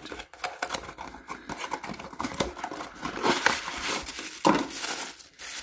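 Toy packaging being opened by hand: dense crinkling and crackling with some tearing, busiest and loudest about three to four and a half seconds in.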